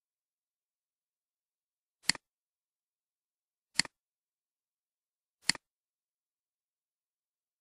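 Three clicks of a computer mouse button, evenly spaced about a second and a half apart. Each is a sharp press followed at once by a fainter release click.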